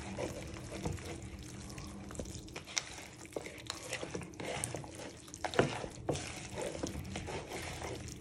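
Hands kneading and rubbing raw skin-on chicken thighs coated in olive oil and seasoning: soft, wet squishing and small slaps of meat, one louder about five and a half seconds in.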